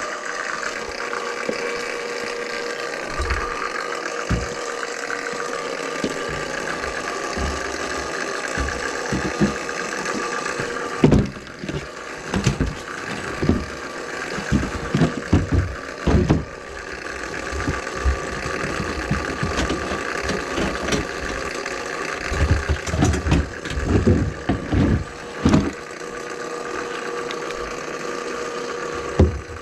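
Electric drain-cleaning machine running steadily with a constant hum while its cable is worked through a grease-clogged kitchen drain line. From about a third of the way in, irregular knocks and rattles come through over the motor.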